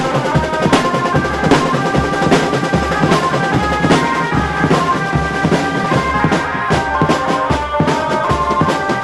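Marching-band drums played fast with wooden sticks: snare and tenor drums rattle out quick patterns over a steady bass-drum beat, with a pitched melody line running above the drumming.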